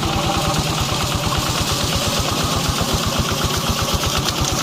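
Small grass-cutter (brush cutter) engine running steadily, its rapid, even firing pulses going without a break.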